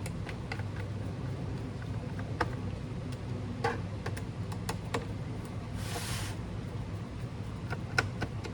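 Scattered light clicks and taps of a laptop being handled, with a short scraping rustle about six seconds in, over a steady low hum.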